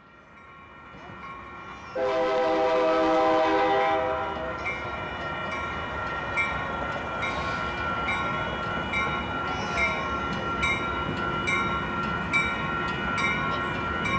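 Diesel locomotive horn on a Union Pacific freight train sounds one chord of about two seconds, a couple of seconds in. A bell then rings steadily about twice a second over the rumble of the passing train.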